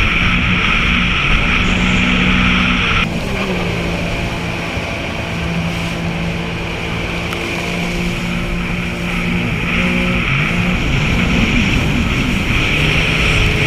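Sea-Doo jet ski engine running steadily under way, with a loud rushing hiss over it. The hiss drops away abruptly about three seconds in and builds back up near the end.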